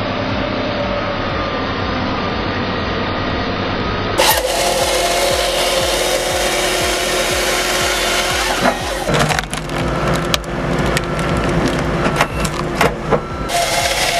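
A steady engine for the first four seconds. Then a saw runs, and wood cracks and splinters in a run of sharp snaps through the second half.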